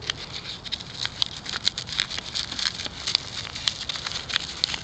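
Light, irregular ticking and rustling from a spoon and a sheet of paper as baking soda is spooned onto the paper.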